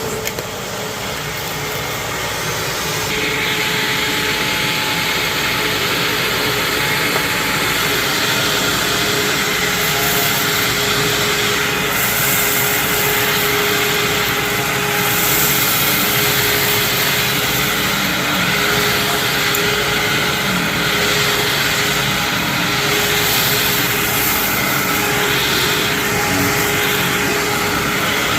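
Hoover WindTunnel Anniversary self-propelled upright vacuum cleaner running, its motor coming up to speed over the first few seconds and then holding a steady hum and whine.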